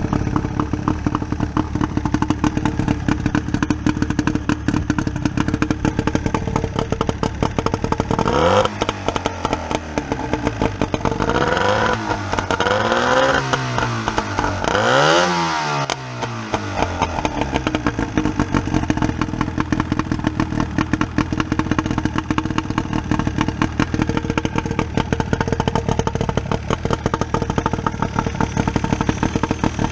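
A Mariner 40 hp two-stroke outboard motor runs after sitting since 2001, with freshly rebuilt carburetors. In the middle it is revved up and back down about four times, then it settles back to a steady run.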